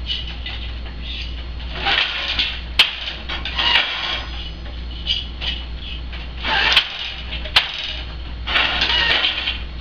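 Wooden countermarch loom in use for hand weaving: several rustling swishes of the shuttle passing through the shed and the beater swinging, with a few sharp wooden clacks as the beater and shafts move.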